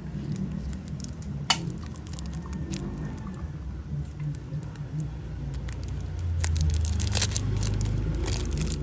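Brass Zippo lighter being handled: one sharp metallic click about a second and a half in, then scattered small clicks and the rubbing of a cloth wiping the case, growing busier near the end, over a low rumble of passing traffic.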